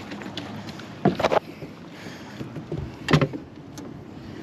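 Knocks on a small boat's hull and deck as a caught bass is swung aboard: a quick cluster about a second in, and one more about two seconds later.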